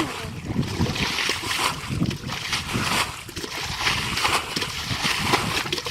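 Water splashing and sloshing in quick, irregular strokes.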